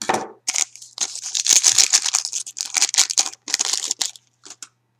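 Foil wrapper of a trading-card pack crinkling and crumpling in the hands as the cards are pulled out: a run of rustling crackles that stops about four seconds in.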